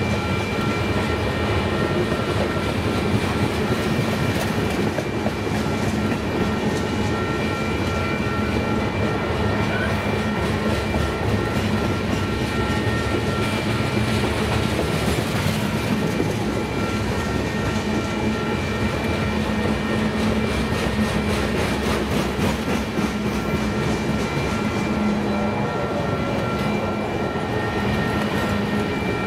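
Loaded covered hopper cars of a freight train rolling past: steel wheels clacking over the rails in a steady rhythm, with a faint steady high ringing tone over the rumble.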